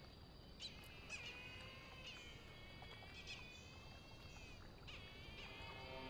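Brahminy kites calling faintly: several high-pitched calls, each rising sharply and then sliding down.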